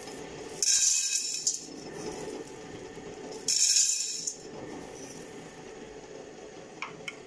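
Dry popcorn kernels poured into a hot, empty stainless steel pot, rattling against the metal in two pours about three seconds apart, with a steady low hiss between them.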